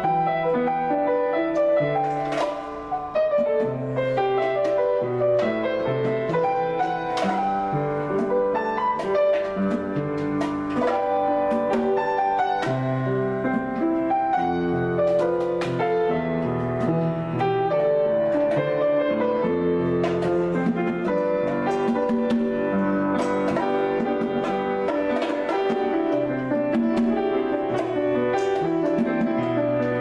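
Grand piano played in a free improvisation: a continuous flow of chords and melody lines.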